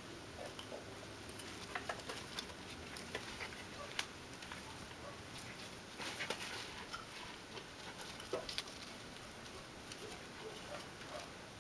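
A puppy's paws scuffling and scratching in dry sandy dirt, as faint scattered scrapes and small clicks, with a brief louder burst of scratching about six seconds in.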